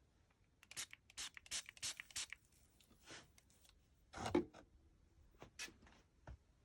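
Short, faint scratchy strokes as freshly soldered fencing cord clips are gone over with alcohol to clean and cool them. There are about five strokes in quick succession in the first couple of seconds, then a few more spaced out.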